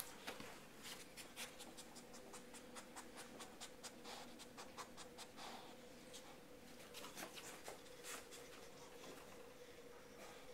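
Faint quick sniffing and scratchy rustling of a dog nosing and pawing through blankets and pillows while searching for a scent, in many short irregular bursts. A faint steady hum runs underneath.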